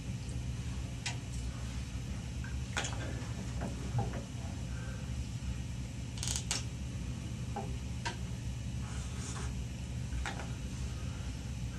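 Steady low room hum with scattered faint clicks and scratches of pencils on paper and small movements at a wooden table, and a brief rustle about six seconds in.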